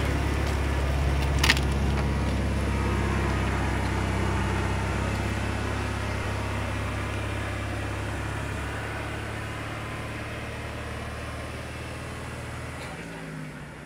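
Maybach HL 120 V12 petrol engine of a Panzer IV Ausf. H tank running steadily as the tank drives away, its note slowly fading. A single sharp click about a second and a half in.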